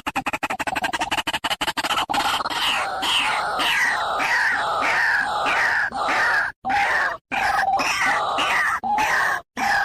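White-breasted waterhen (dahuk) calling: a rapid run of short clicking notes, then harsh falling calls repeated about twice a second.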